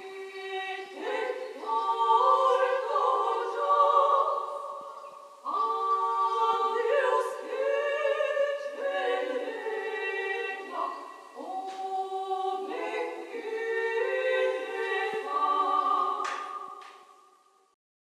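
Layered a cappella female singing built up with a loop station into a choir of sustained notes, the chords shifting every second or two. It fades out near the end.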